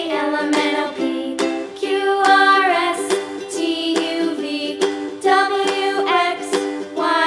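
Background music: a light, upbeat tune with plucked ukulele-like strumming and a vocal-like melody.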